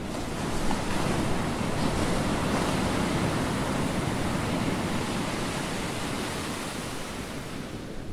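Sea waves washing: a steady rushing noise that swells about a second in and eases off near the end.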